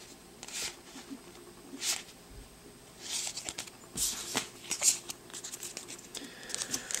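Yu-Gi-Oh trading cards sliding against one another as they are flipped through by hand: a series of short papery swishes and flicks, growing busier near the end.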